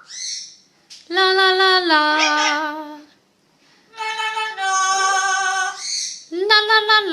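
Amazon parrot singing in a human-like voice: three phrases of long held notes, each stepping down in pitch, with short pauses between them.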